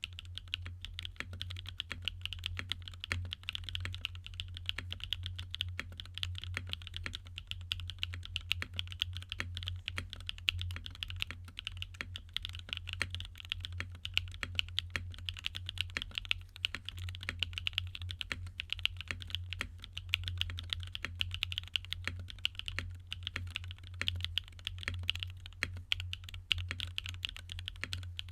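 Frog TKL mechanical keyboard being typed on continuously, a quick, uneven patter of key clicks, with a steady low hum underneath.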